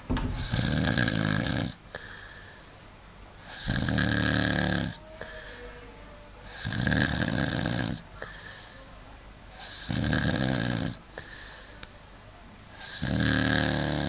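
A sleeping man snoring: five loud, rasping snores about three seconds apart, with quiet between.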